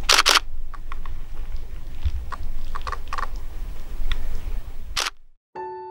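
Nikon D610 DSLR shutter firing, a quick double click at the start and one more about five seconds in, with light handling and rustling clicks and a low wind rumble between. Piano music starts just before the end.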